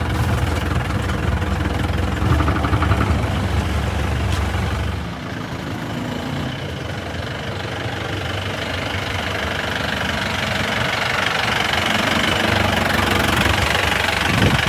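A modified open-top jeep's engine running as it drives slowly. For the first five seconds there is a deep, steady low rumble from inside the cabin. After that the sound comes from outside: thinner, and growing louder toward the end as the jeep comes closer.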